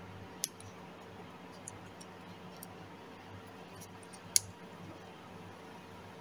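A few small, sharp clicks of a metal snap swivel and foam fishing float being handled and fitted together by hand, the loudest about four seconds in, over a faint steady low hum.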